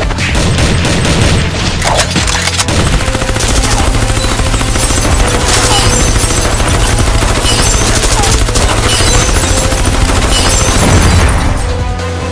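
Battle sound effects: a dense, unbroken crackle of rapid blasts like a long volley of gunfire, over a steady low rumble, accompanying a clash of glowing energy attacks.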